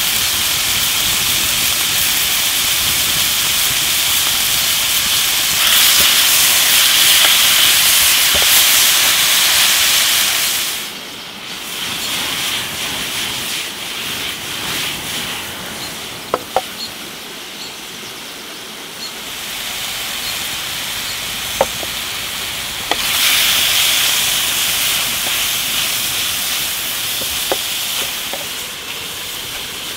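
Beef cubes sizzling as they sear in a hot cast iron skillet over a campfire: a loud, steady frying hiss that swells and eases a few times, with a handful of sharp pops in the second half.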